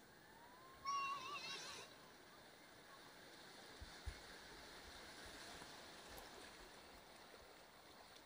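Faint, steady wash of sea surf, with a short high-pitched voice calling out about a second in.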